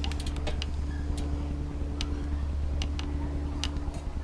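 Light metallic clicks and ticks of a bicycle chain being handled and fed through the rear derailleur, about a dozen sharp clicks at irregular intervals over a steady low hum.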